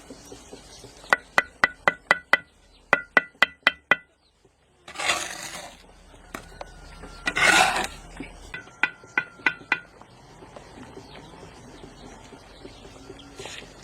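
Quick runs of hammer blows on metal, each with the same bright ringing tone: three runs of about five or six strikes, four to five a second. Two short rushes of noise come between the second and third runs.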